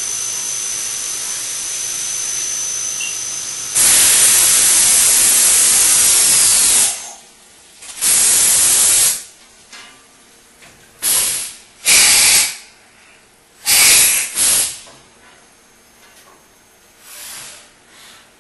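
CNC vertical machining centre cutting under flood coolant: a steady spraying noise with a thin high whine. About four seconds in, a much louder hiss starts and lasts about three seconds. It is followed by a shorter hiss and three brief hissing blasts, then the level drops.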